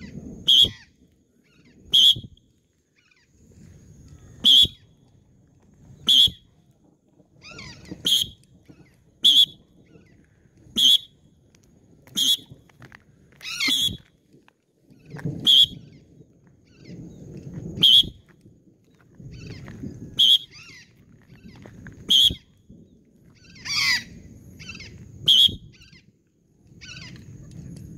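Patagonian conure giving short, harsh screeching calls in flight, one every one and a half to two seconds, about fifteen in all. A low rushing noise sits between the calls.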